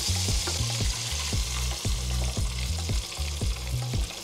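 Hot oil sizzling steadily as floured fish wings deep-fry in a pan, with a low rhythmic beat running underneath.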